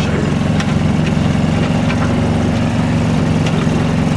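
A small engine running steadily at an even speed, with a few faint clicks.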